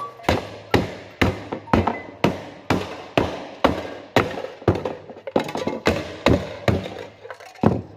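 Hard knocks repeated at an even pace, about two a second, as something is struck over and over.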